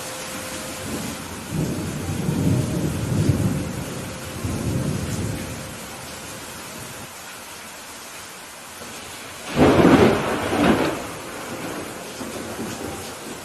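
Thunderstorm: steady rain hissing, with low rolling thunder rumbling through the first few seconds. About two-thirds of the way in comes a louder, sharper crack of thunder.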